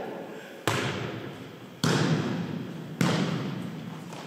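A volleyball being struck by players' hands and forearms during a rally, three sharp smacks about a second apart, each echoing and fading away in a large gymnasium.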